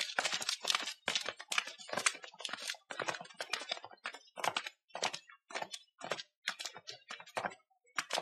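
Footsteps of several people walking on stone paving and up stone steps: a quick, uneven run of sharp clicks and taps.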